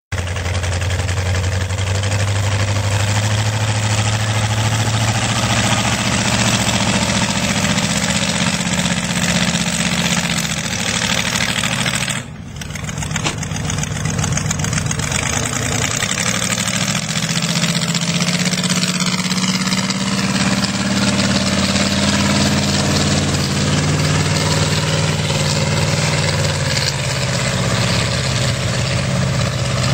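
Lifted mud-bogging pickup truck's engine running loudly as it drives through the mud, its pitch rising and falling with the throttle. The sound drops briefly about twelve seconds in.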